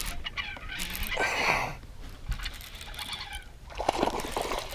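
Handling noise close to the microphone: irregular brushing and rustling, with a few short clicks near the end.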